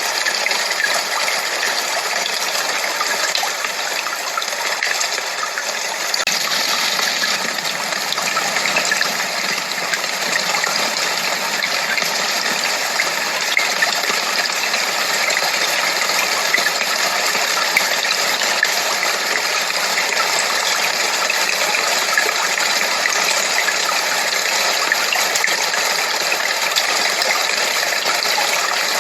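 Steady, unbroken rushing noise with a gushing, water-like texture and no deep bass.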